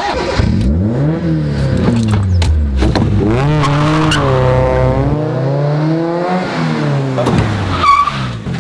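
Toyota AE86 Trueno's 1600 twin-cam four-cylinder starting and then revving hard, its pitch climbing and dropping again and again as it is driven through the gears. A brief high squeal, like tyres, near the end as the car pulls up.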